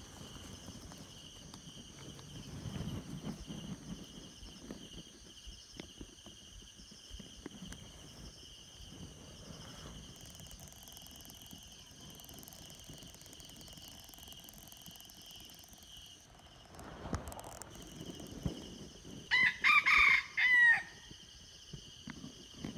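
Red junglefowl rooster crowing once, a short broken crow near the end. Steady high insect trill in the background.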